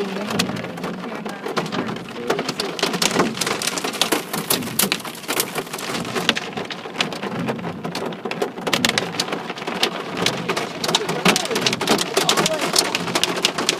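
Hailstones pelting a car's body and windows: a dense, rapid, irregular patter of hard clicks.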